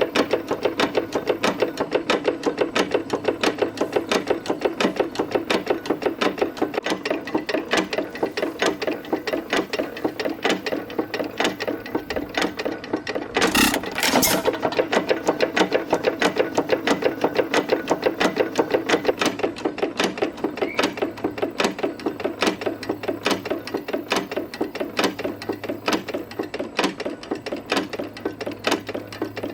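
Detroit Engine Works hit-and-miss engine running: a rapid, even mechanical clatter of gears clanking, the connecting rod knocking and the piston pumping. About halfway through come two louder bangs, the engine's firing strokes.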